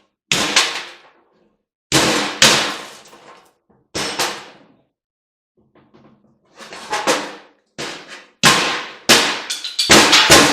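Metal parts from a stripped-down electric motor clanging: sharp metallic impacts, each ringing briefly, scattered at first and then coming quickly, several a second, near the end.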